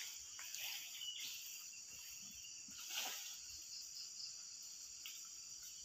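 Faint, steady high-pitched insect chorus, with a few soft clicks.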